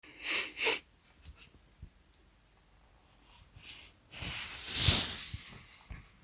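A person breathing: two quick short breaths, then a longer breath that swells and fades about four to five seconds in, with a few faint ticks.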